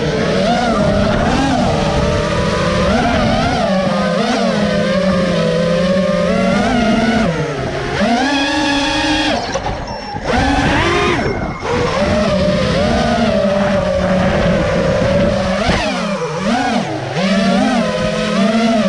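FPV quadcopter's motors and propellers whining, the pitch rising and falling with the throttle, with a steep rise a little before halfway. The whine cuts out briefly twice just past halfway, as the throttle drops.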